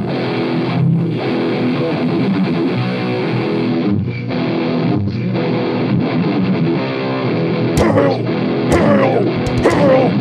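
A heavy metal band playing live: electric guitars and drums, broken by a couple of short stops in the riff.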